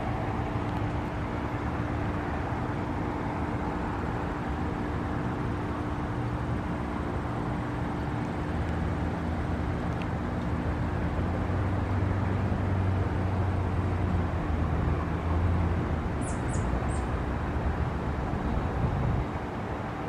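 Steady outdoor hum of distant road traffic, with a low rumble that swells through the middle, and a few short high bird chirps near the end.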